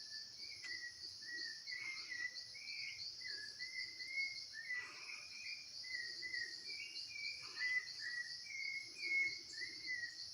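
A songbird singing a long string of short, clear whistled notes that step up and down in pitch, over a steady high-pitched chorus of crickets or cicadas.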